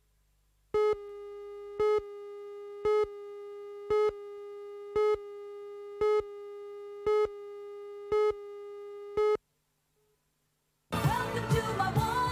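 Videotape countdown leader: a steady tone with a louder beep about once a second, nine beeps in all, stopping suddenly about nine seconds in. After a short silence, music starts near the end.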